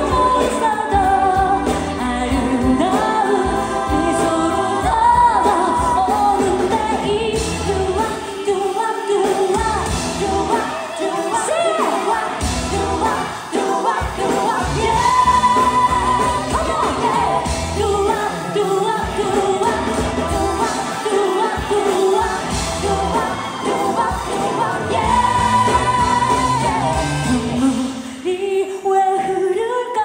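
A woman singing a pop song live into a handheld microphone, with long held, wavering notes over a loud band track with a steady beat. A little before the end the beat drops out and the music turns softer.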